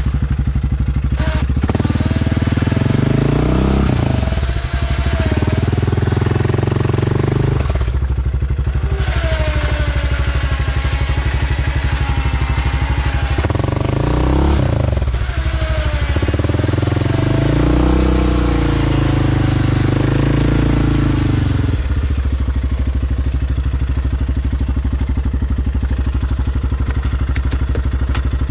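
ATV engine running hard on a trail ride, its pitch rising and falling several times as the throttle is opened and closed.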